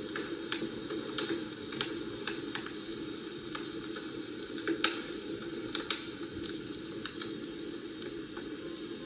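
Wood fire crackling in a fireplace: irregular sharp pops and snaps over a steady low hiss.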